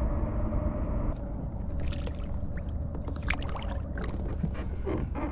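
Water splashing and dripping at the side of a kayak as a hand dips into it, with short clicks and splashes from about two seconds in over a steady low rumble.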